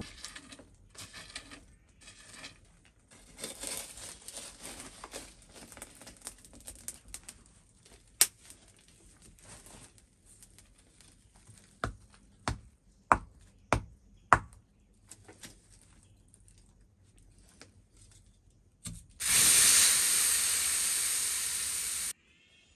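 Hot decarburized cast iron struck on a flat stone anvil with a hand-held hammerstone: a lone sharp knock, then about five sharp knocks in quick succession. Near the end a loud steady hiss of about three seconds, as of hot iron being quenched, cuts off suddenly.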